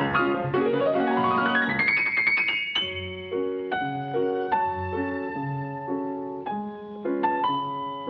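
Solo grand piano. Quick repeated chords, then a fast rising run that climbs for about two seconds, then slower separate chords over deep bass notes.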